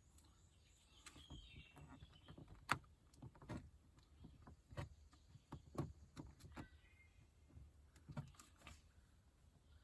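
Faint, scattered clicks and scrapes from a thin putty knife tucking the edge of the door-panel insert into the plastic panel.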